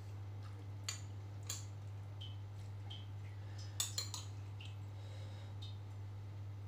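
A metal spoon clinking against a glass bowl of meatball soup while eating: single sharp clinks about a second in and again half a second later, and a quick cluster of three, the loudest, near the four-second mark. A steady low hum runs underneath.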